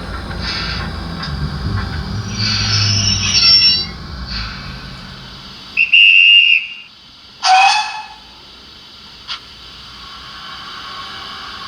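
Sound decoder of a model GWR 'King' 4-6-0 steam locomotive playing its steam recording through the model's small speaker: running sounds with bursts of steam hiss, which stop about halfway through, then two short whistle blasts, the second one louder.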